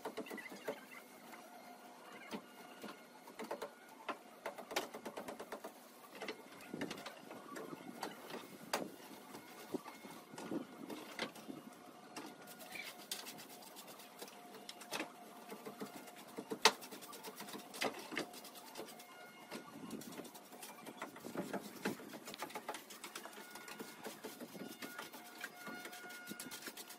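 Irregular light knocks, snaps and rustles of dry vines and debris being pulled and cut away with hand tools on a roof, one sharper knock about two-thirds of the way through, over a faint steady hum.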